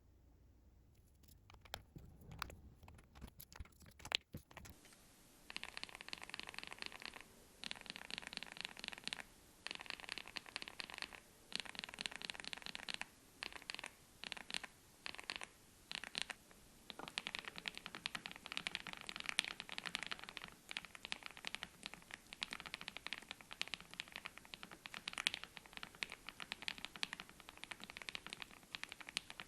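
Mechanical keyboard fitted with KTT Kang White V3 linear switches being typed on. A few scattered key clicks come first; from about five seconds in, fast runs of clacking keystrokes follow with brief pauses between them.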